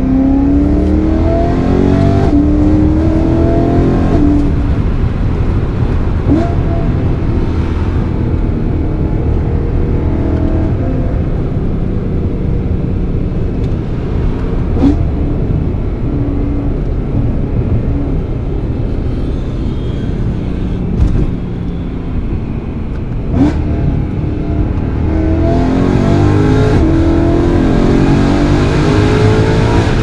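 BMW E92 M3's naturally aspirated 4.0-litre V8 heard from inside the cabin while driving: the engine revs up with rising pitch through the first few seconds, runs steadily while cruising, and climbs in pitch again near the end. A few short sharp clicks stand out along the way.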